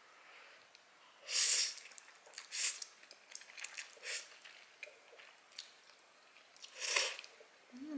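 Slurping and chewing instant jjajang noodles: two loud slurps about a second and a half in and at seven seconds, a shorter one between, and soft wet chewing smacks in the gaps.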